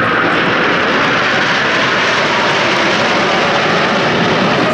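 A formation of Aermacchi MB-339 PAN jet trainers flying past, their Rolls-Royce Viper turbojets making a loud, steady jet noise.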